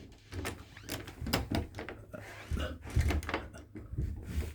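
Doorknob and latch hardware being handled: a run of irregular metal clicks, knocks and rattles, with a few duller thunks.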